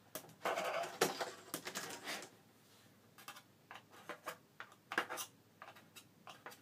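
Hands handling plastic laptop parts: a stretch of rustling and scraping in the first two seconds, then scattered light clicks and taps, the sharpest about five seconds in.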